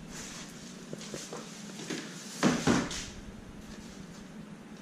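Gear being shifted around in an ice shelter's sled tub and folded fabric cover: rustling with light knocks, and a louder pair of knocks about two and a half seconds in.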